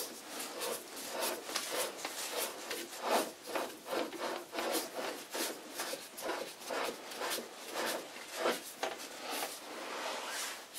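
A lathe chuck being spun by hand onto the lathe spindle's lightly oiled, slightly damaged thread: a faint, irregular string of short metal-on-metal rubbing and scraping strokes, a few a second, as the threads turn and the hand regrips.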